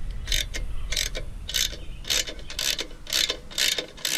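Socket ratchet wrench clicking in short repeated strokes, about two a second, as it backs out a 3/8-inch bolt on the mower engine's cover.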